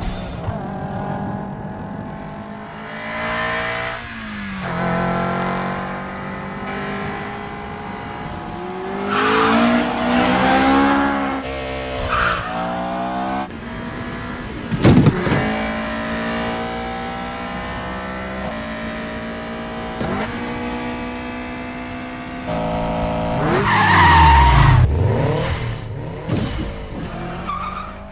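Film sound-effects track of a Mitsubishi Lancer Evolution VII (2-litre 4G63 inline four) and a Mitsubishi Eclipse Spyder, engines revving up and down through the gears. There is a sharp crack about fifteen seconds in. The loudest part comes near the end, as a deep engine note dips and climbs.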